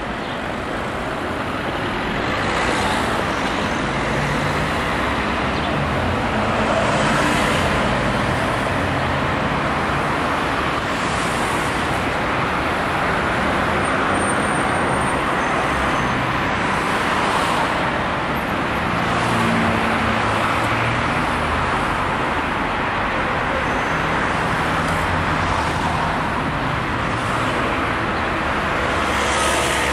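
Steady city street traffic noise, with vehicles passing close every few seconds.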